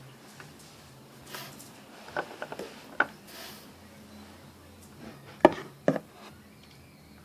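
Small clicks and taps with a few soft swishes from handling a nail polish bottle and brush while painting a shoe heel. The sharpest are two clicks about five and a half and six seconds in, over a faint steady hum.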